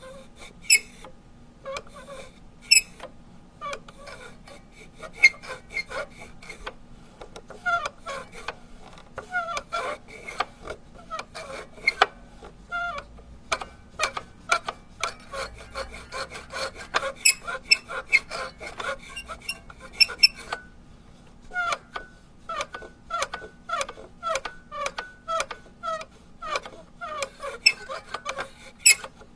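Rubber duck toy squeaked over and over: a fast, irregular run of short squeaks mixed with sharp clicks, with a brief pause about two-thirds of the way through.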